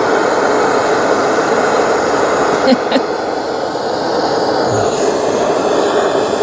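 Handheld gas torch burning steadily with a continuous roar, its flame held against the cut face of a halved onion to char it. Two short clicks sound close together a little before the middle.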